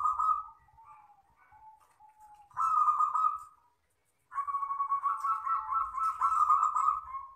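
Zebra dove (perkutut) cooing in the long, clear 'kristal' style: a short phrase at the start, another about two and a half seconds in, then one long phrase of about three seconds from roughly four seconds in.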